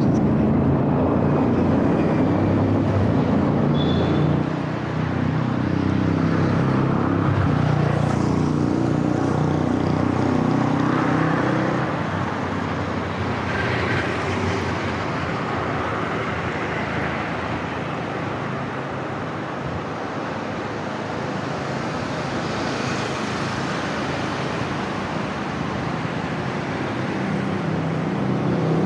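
Riding noise from an action camera on a moving bicycle: wind rumbling on the microphone over the steady sound of road traffic, with motor vehicles passing.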